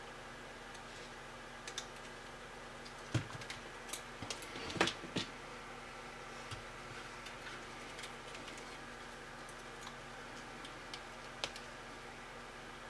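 Faint small clicks and ticks of fingers and tools handling a DCC decoder board and an N scale locomotive's plastic body as the board is pressed into place. A cluster of clicks comes about three to five seconds in and a single one near the end, over a steady faint hum.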